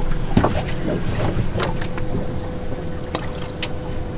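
Steady low hum of a boat's outboard motor running, with a thin steady whine joining partway through and scattered light clicks and knocks.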